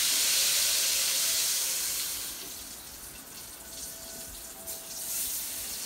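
Kitchen tap running into a sink. The water is loudest for the first two seconds or so, then runs more quietly.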